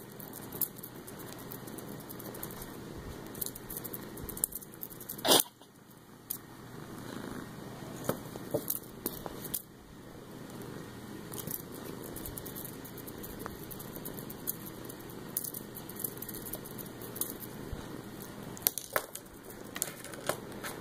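Scattered light clicks and taps of a pencil being batted across a wooden tabletop by a cat's paws, with one much louder knock about five seconds in, over a steady low hiss.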